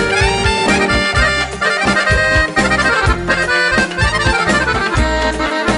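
Instrumental break of a Macedonian-language song: a quick melodic lead line of short notes over a steady drum beat, with no singing.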